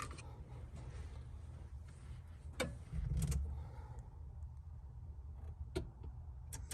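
A few sharp clicks from the climate control's fan switch being worked, with a brief low thump near the middle, over a steady low rumble. No blower starts: the fan is not hooked up.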